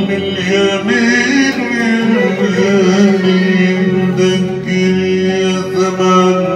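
Arabic song performed live: a male singer draws out a long, wavering melismatic vocal line over oud accompaniment.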